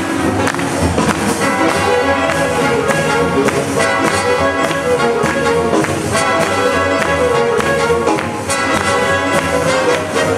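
Live swing big band playing, with the saxophone and brass sections over a steady rhythm-section beat.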